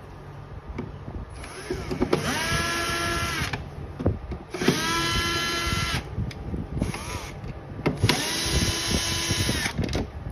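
Cordless electric screwdriver spinning out screws from a dehumidifier's casing: three runs of a few seconds each and one short blip. Each run's whine rises quickly in pitch and then holds steady.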